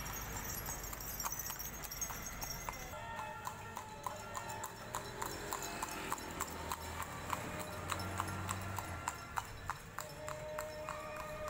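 Horse hooves clip-clopping on an asphalt road as a Javanese andong horse carriage trots past, a steady beat of about three strikes a second.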